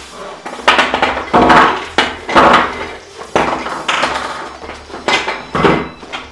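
Polyethylene foam packing blocks squeaking and scraping against each other and the box as they are lifted out and handled, in a string of loud squeaky rubs about one a second.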